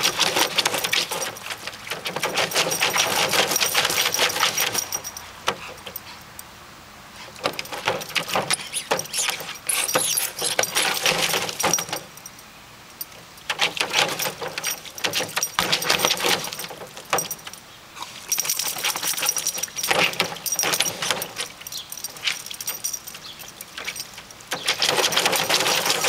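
A Brittany spaniel digging with its front paws in shallow water in a plastic kiddie pool, making fast, repeated splashing strokes. The strokes come in bursts of several seconds, with short quieter pauses between them.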